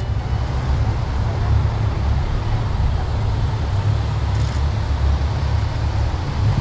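A dark SUV pulling up and stopping, its engine and tyres heard under a heavy, gusting rumble of wind on the microphone.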